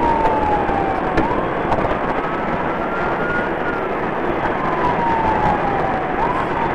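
Police patrol car at speed in a pursuit: loud engine, tyre and wind noise inside the cruiser, with the siren wailing, its pitch sliding slowly down, jumping back up about a second in, then falling slowly again near the end.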